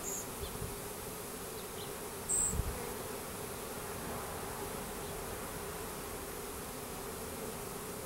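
A swarm of Russian/Carniolan honey bees, freshly shaken from a package into a hive, buzzing in a steady hum. About two and a half seconds in there is a brief low bump and a short high chirp.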